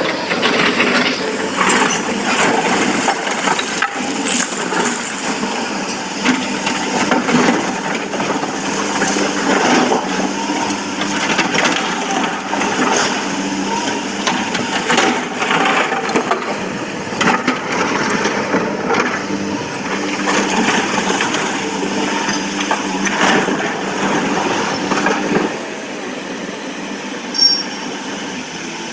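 SANY SY225C excavator's diesel engine running steadily while its bucket digs and scrapes through broken quarry rock, with repeated rock clatter, knocks and crunches. The digging noise stops about three-quarters of the way through, leaving the engine hum.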